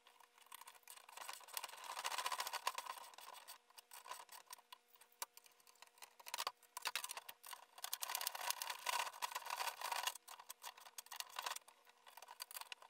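Small metal hand tools clicking and ticking irregularly as nylock nuts are tightened onto the mounting bolts of a light fixed in a plastic RV fridge vent, with a faint steady hum underneath.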